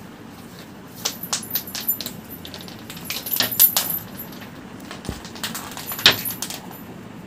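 Two flurries of quick, light clicks and rattles from kittens scampering and playing on a concrete floor, the loudest taps near the middle and again about six seconds in.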